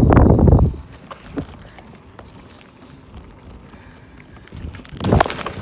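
Mountain bike riding along a tarmac road. A loud low rumble at the start settles into a quiet, steady rolling hum, and a few sharp knocks or rattles come near the end.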